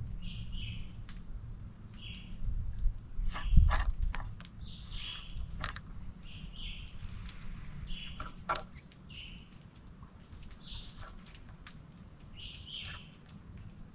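A bird calling over and over with short high chirps, roughly one a second, over a low rumble. A few sharp clicks and knocks come through, the loudest a thump about three and a half seconds in.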